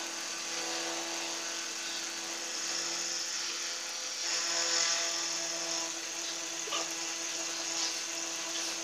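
Benchtop milling machine running with its spindle at about 1200–1500 rpm, an end mill climb-milling a dovetail insert: a steady motor whine with a cutting hiss over it, brighter and a little louder between about four and six seconds in.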